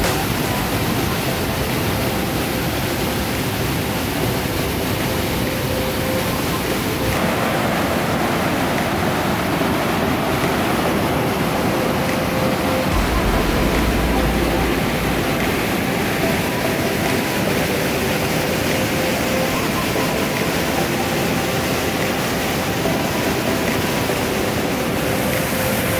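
Water released under high pressure from a dam outlet, rushing and churning white down a concrete spillway channel: a loud, steady rush of water.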